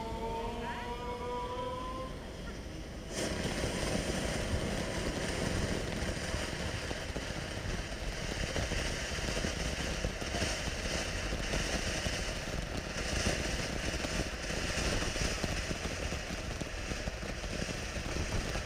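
Standard Fireworks 'Franky Stein' firework fountain burning with a steady rushing hiss of sparks. A rising tone runs through the first two seconds; about three seconds in, the fountain abruptly turns louder and fuller, and stays that way.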